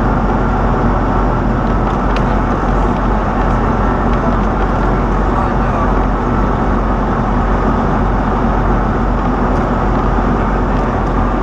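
Steady engine and road noise of a truck underway, unchanging throughout.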